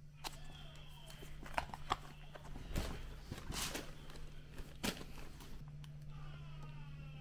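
Tissue paper and clothing rustling and crinkling as they are handled in a cardboard delivery box, in several short, sharp rustles. Faint background music comes in about two-thirds of the way through.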